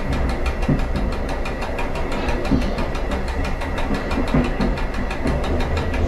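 Diesel train's engine running steadily as the train travels along the line, with a fast even rattle and a few separate knocks about a second or two apart.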